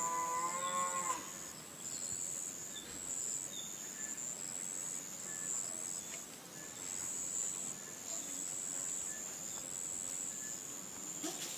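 A cow mooing, the low call ending about a second in. Then a high, thin insect buzz that stops and starts every second or so, with faint scattered chirps.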